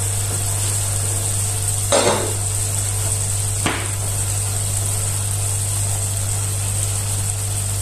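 Minced meat simmering in its masala in a steel pot, a steady sizzling hiss over a low steady hum. Two short knocks sound about two seconds in and again a second and a half later.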